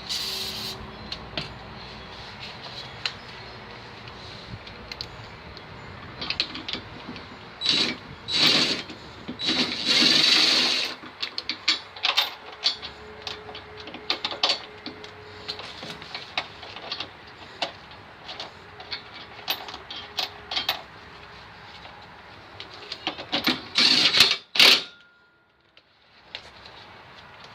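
Hand tools and metal parts at work: scattered clinks, clicks and knocks, with a few short louder rushing bursts about eight to eleven seconds in and again near the end.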